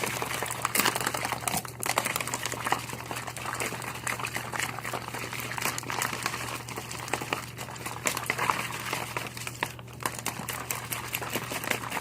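Plastic shaker bottle of G Fuel drink mix and water being shaken hard: the liquid sloshes with dense, irregular rattling and clatter, easing off briefly twice.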